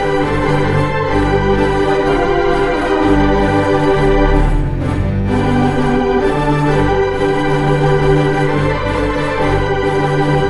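Wurlitzer theatre pipe organ of 4 manuals and 24 ranks playing full held chords over a moving bass line, with a short lift in the upper voices about halfway through.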